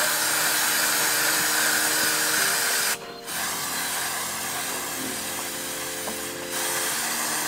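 Aerosol can of Motul C2 chain lube spraying onto a motorcycle's rear drive chain in long hisses. One long spray, a brief break about three seconds in, then a quieter spray that gets louder again near the end.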